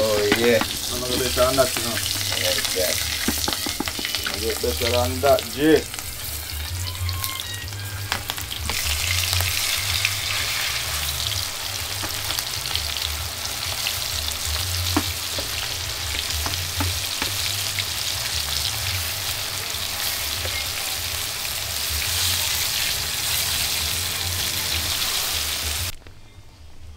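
Food frying in hot oil in a cooking pot, a steady sizzle with stirring, which cuts off suddenly near the end.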